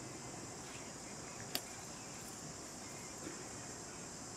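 Steady high-pitched insect chorus, with a single sharp click about a second and a half in.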